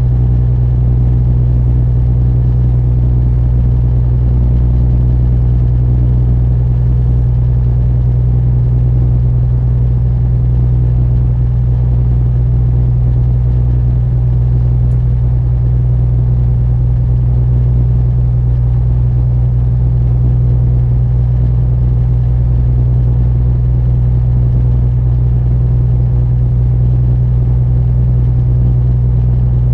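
Diesel engine of a spits canal barge running steadily at cruising speed, heard on board as a deep, even drone that does not change.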